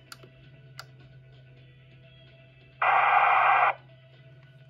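Uniden police scanner being switched off and back on at its volume knob: two faint clicks, then about three seconds in a loud burst of static from its speaker lasting under a second, over a low steady hum.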